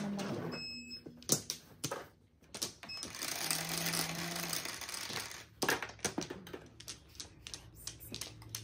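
Mahjong tiles clicking and clacking as they are played and handled on the table: a string of sharp irregular clicks, with a couple of seconds of continuous rattle partway through.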